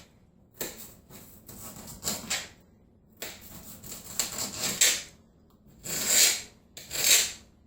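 Kitchen knife slicing an onion into strips on a cutting board, in irregular strokes with short quiet gaps between them.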